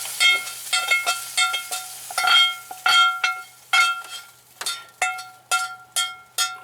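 A metal utensil knocking and scraping in a metal cooking pan, about two or three strikes a second, each leaving the pan ringing at the same pitch; the strikes grow softer in the second half.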